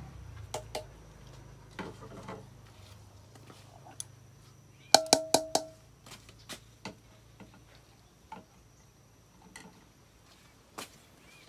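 Metal spatula knocking and scraping on a cooking pan, with scattered clinks and a quick run of loud, ringing metal taps about five seconds in.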